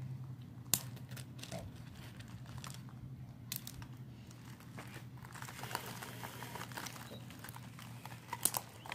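Handling noise of a phone held in the hand with a finger on the lens: scattered clicks and rustling of fingers against the phone and its microphone, over a faint low hum. There is a sharp click under a second in, busier rustling from about halfway through, and a close pair of clicks near the end.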